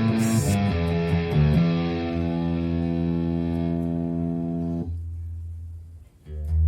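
Electric bass guitar played through a Fender Rumble LT25 bass combo amp on a distorted effects preset. A few plucked notes lead into a held note that rings out and is cut off about five seconds in. After a brief pause a new low note starts near the end.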